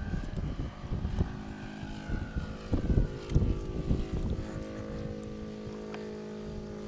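Radio-controlled aerobatic model plane's motor and propeller running in flight, a steady even tone that holds on as the gusts die away. Wind buffets the microphone in the first half, loudest a few seconds in.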